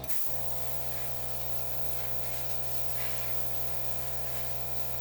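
Small electric air compressor running, its motor humming steadily under a hiss of air blowing from the nozzle. It cuts out briefly just after the start.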